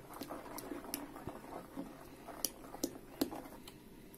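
A metal spoon stirring thick, raw minced adjika in a stainless steel pot: soft wet squelching, with several sharp clicks as the spoon knocks the pot.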